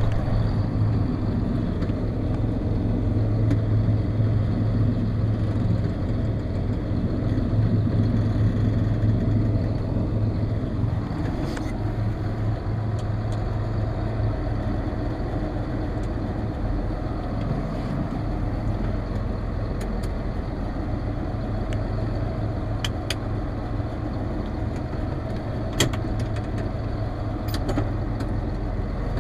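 John Deere 7800 Power Shift tractor's six-cylinder turbodiesel running steadily, heard from inside the cab. The level dips slightly about ten seconds in, and a few faint clicks come later.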